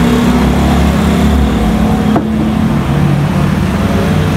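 A Honda Civic sedan's engine and exhaust as the car drives slowly past: a loud, steady low drone whose pitch shifts slightly as it goes by.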